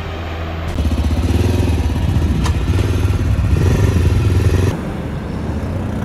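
Zongshen RX3 motorcycle's single-cylinder engine running under way. About a second in it gets suddenly louder, its note rising and falling with the throttle, then drops back to a steadier drone about a second before the end.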